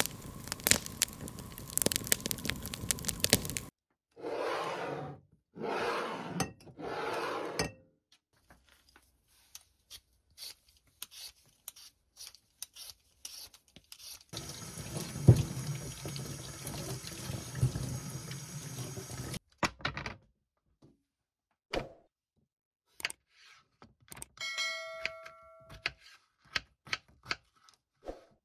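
Food-prep sounds: a wood fire crackling at the start, three short rushing sounds, then potatoes being peeled and diced with a knife on a plastic chopping board, with sharp clicks of the blade. In the middle, water runs for about five seconds, and near the end a brief ringing tone sounds.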